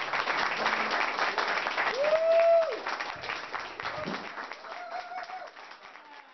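Audience applauding after a live song, with a couple of drawn-out cheering calls from the crowd; the clapping thins out and fades toward the end.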